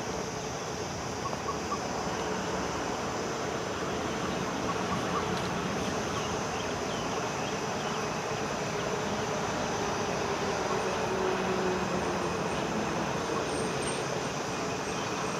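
Two coupled WAG-5HA electric freight locomotives running light and approaching from a distance: a steady hum and rumble of the locomotives and their wheels on the rails, with faint bird chirps over it.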